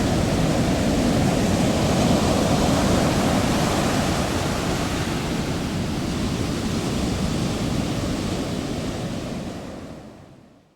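Heavy ocean waves breaking: a dense, steady rush of surf that fades out near the end.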